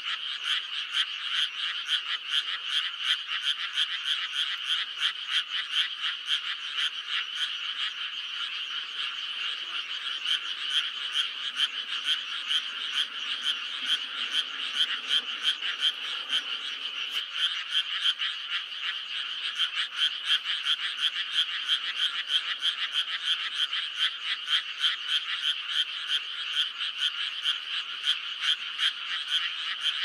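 A dense chorus of many frogs calling at once, the spring breeding chorus: a steady, high-pitched din made of rapid, overlapping pulsed calls.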